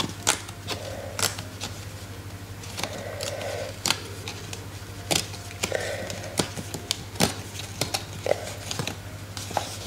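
Paper envelope, a Google AdSense PIN mailer, being torn open by hand along its tear-off edge strip: irregular crackling and ripping of paper with sharp ticks.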